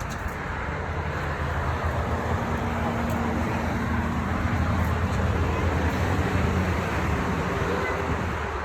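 Steady engine and road noise of a car driving: a continuous low rumble with an even hum and no sudden sounds.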